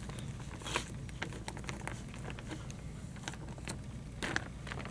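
Plastic zip-top bags of soft-plastic fishing baits being handled, crinkling and rustling with scattered small clicks and a couple of louder crinkles.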